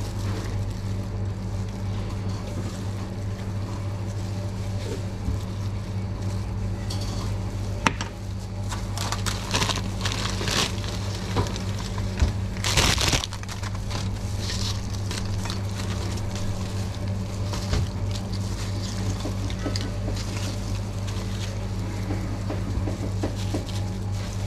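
Tortilla chips crunching and a chip bag crinkling as chips are poured out and crushed by gloved hands, with the loudest burst about halfway through. A steady low hum runs underneath.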